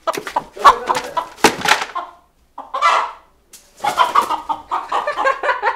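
A chicken squawking and clucking loudly in several uneven bursts while it is being chased and cornered. There are a few sharp knocks in the first two seconds.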